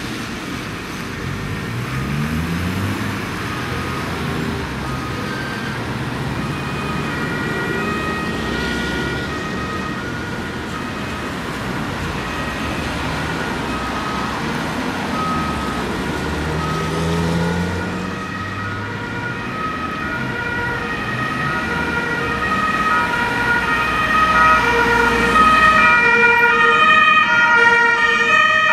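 German two-tone emergency sirens (Martinshorn) of fire engines answering a call, alternating between two pitches and growing steadily louder as the vehicles approach, over road traffic noise. Near the end more than one horn sounds at once.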